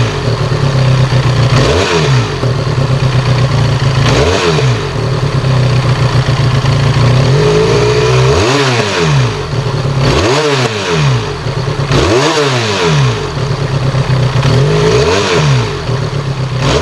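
Benelli Leoncino 500's parallel-twin engine breathing through an SC Project Conic Carbon slip-on exhaust, idling and blipped repeatedly. The revs rise and fall about seven times, with a steady idle in between.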